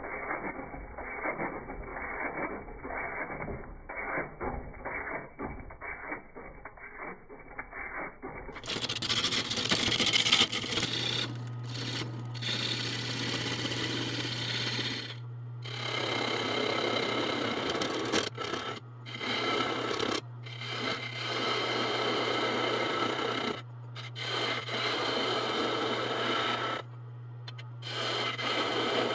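A turning tool cutting a spinning monkey puzzle wood blank on a Jet mini lathe. It starts as a rapid, rough scraping. After about eight seconds the lathe's steady motor hum runs under the hiss of the tool taking shavings, and the cutting breaks off briefly several times as the tool is lifted from the wood.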